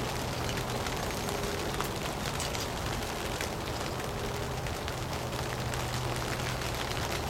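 Light rain falling steadily: a constant hiss broken by many small scattered ticks of drops.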